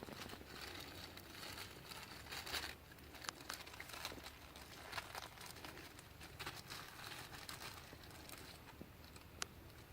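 Faint crinkling of plastic packaging with scattered small clicks and taps as a camera mount and its parts are unpacked and handled; the crinkling is densest in the first couple of seconds.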